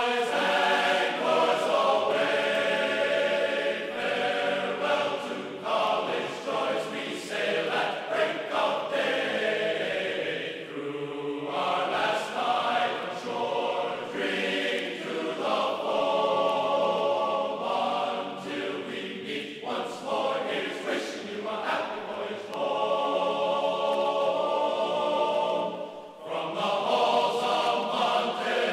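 Background music with a choir singing long held notes that change every second or two.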